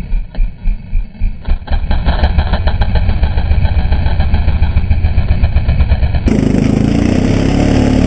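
ATV engine running as the quad is ridden over a rough, rocky trail. About six seconds in it changes abruptly to a louder, steadier engine note.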